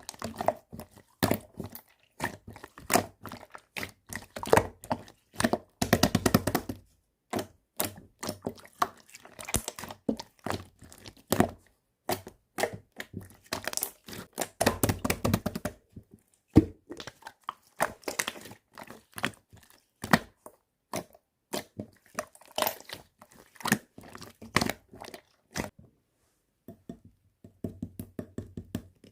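Slime being squeezed, stretched and pressed by hand, making an irregular stream of sharp pops, clicks and crackles, with denser crackling stretches twice.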